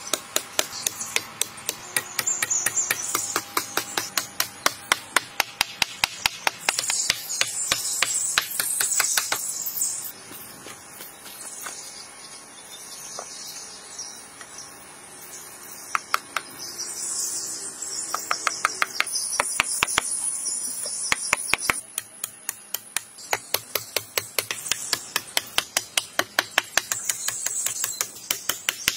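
Rapid, repeated hammer blows on wood, a few strikes a second, in runs broken by a quieter spell in the middle with only scattered blows. Insects buzz high in the background.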